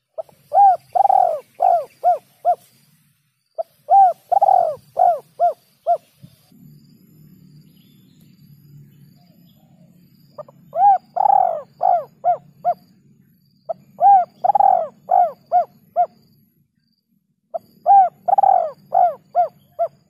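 Spotted dove (tekukur) cooing in five repeated phrases, each a run of five or six coos that rise and fall in pitch. There is a longer pause after the second phrase.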